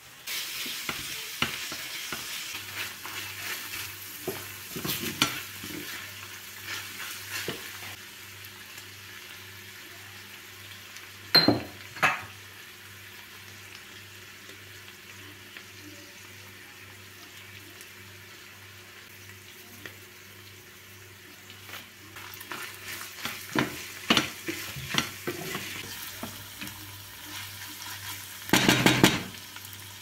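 Minced beef sizzling as it fries in a stainless-steel pan, stirred and scraped with a wooden spoon; the sizzle starts suddenly as the meat goes into the hot pan. Two sharp knocks come about eleven and twelve seconds in, and a short loud clatter near the end.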